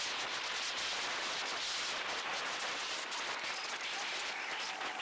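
Racing go-karts running in a pack through the first turn, heard through an onboard camera as a steady hiss with light crackling.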